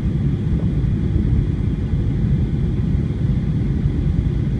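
Airliner cabin noise during landing: a steady low rumble of engines and airflow heard from inside the passenger cabin.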